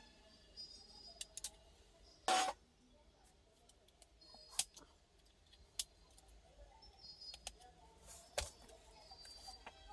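Scattered clicks and metallic clinks of tools and parts being handled during a breaker repair, with one louder, longer clatter about two seconds in.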